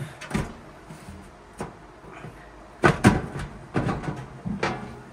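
Clicks and knocks as the front cover of a Toyotomi Laser 300 diesel heater is pried off, its clips snapping loose. The loudest are two snaps close together about three seconds in.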